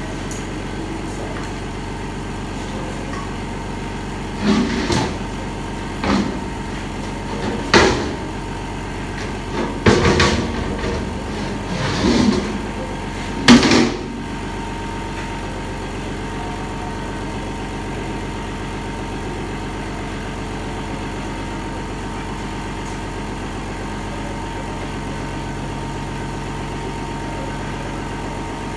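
Six metal clunks and knocks over about ten seconds as transmission parts are handled during a teardown, the last one the loudest, over a steady mechanical hum.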